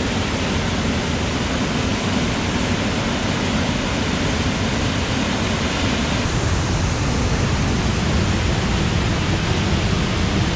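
Waterfall running hard in a gorge, 'going off': a steady rush of falling water. Its tone shifts slightly about six seconds in, becoming a little deeper and less hissy.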